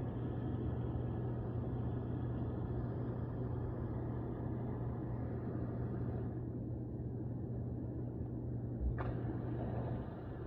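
Hot tub jet pumps running with water rushing through the jets over a steady motor hum; the pump that had only hummed with a bad start capacitor is now running properly. About six seconds in the hiss lessens, a click comes near nine seconds, and the motor hum cuts off near the end.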